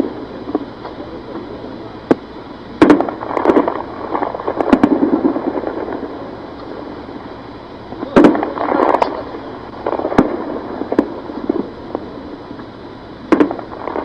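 Gunfire: loud single shots several seconds apart, each sharp crack followed by a rolling echo lasting about a second, with fainter scattered shots in between.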